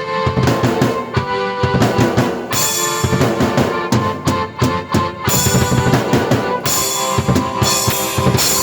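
Drum kit and keyboard played together: a driving beat of kick and snare under held keyboard chords, with cymbal crashes several times.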